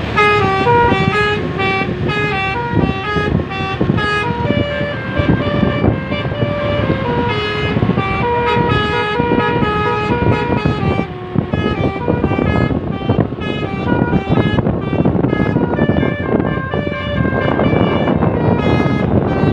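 Telolet basuri multi-tone air horn on an SJM Trans bus playing a long, unbroken melody of quick stepped notes.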